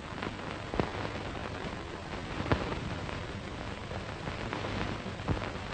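Hiss and crackle of an old 1930s optical film soundtrack, with a faint low hum and a few scattered sharp pops.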